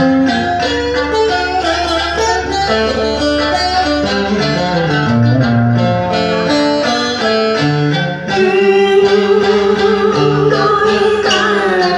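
Vietnamese traditional cổ nhạc accompaniment: a plucked moon lute and an electric guitar play a busy melodic instrumental passage. About eight seconds in, a woman's singing voice comes in with a held, wavering note over the strings.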